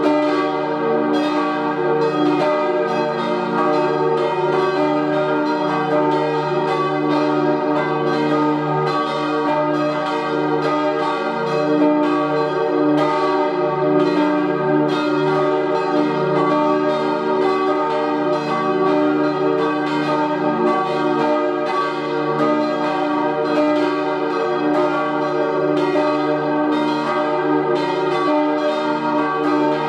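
Church bells of a four-bell tower peal tuned E-flat, G, B-flat and E-flat, cast in 1888 by Rüetschi of Aarau, ringing together in a continuous swinging peal. Strokes overlap several times a second over a steady ringing hum.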